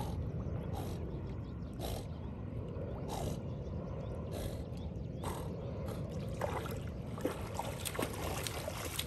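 Labrador retriever swimming with a ball in its mouth, huffing a breath about once a second over a low steady rumble, then splashing through the shallows as it wades out near the end.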